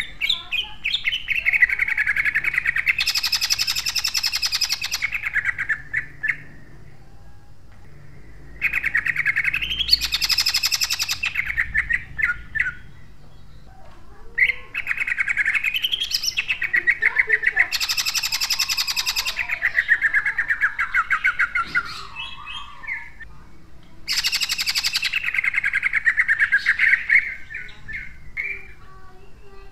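Caged male cucak ijo (green leafbird) singing in four bouts, each a fast trill of quick notes with a loud, harsh rapid-fire burst in the middle: the 'tembakan' shooting phrase that song-contest fanciers prize. Short quieter calls fill the gaps between bouts.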